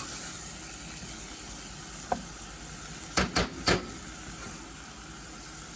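Chopped broccoli, carrots and onions sautéing in butter in a pot, a steady low sizzle as they soften over medium heat. About three seconds in come three quick clicks, kitchen-utensil knocks on the pot.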